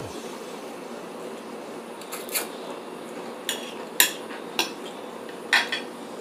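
Metal fork clinking and scraping against a plate of noodles and fried chicken: about seven short, sharp clinks, starting about two seconds in.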